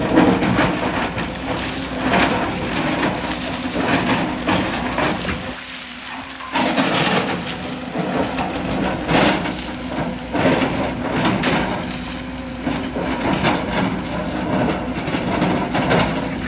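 Hyundai excavator bucket scraping and breaking away a rock face, with rock and debris crashing and clattering down again and again over the steady running of its engine. The crashing lets up briefly about six seconds in.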